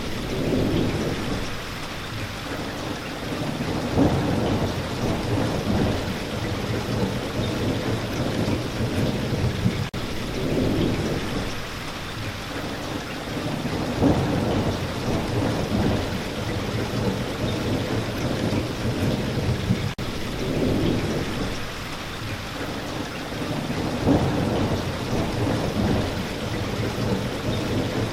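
Steady rain falling on a surface, with low rumbles of thunder swelling and fading every few seconds. The same stretch of sound repeats about every ten seconds, with a brief dip at each seam.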